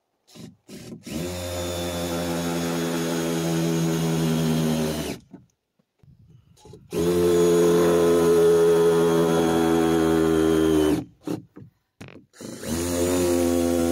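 Power drill driving screws into framing lumber as temporary clamps: three runs of about four seconds each, each begun with a couple of short trigger taps, then a steady motor whine.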